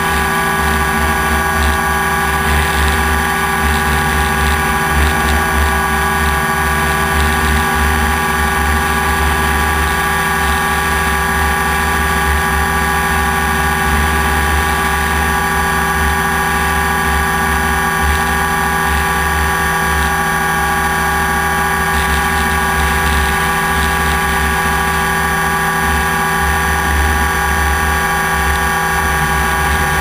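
Drone's electric motors and propellers whining steadily in flight, heard up close from the onboard camera: a hum made of several steady tones that hold without change.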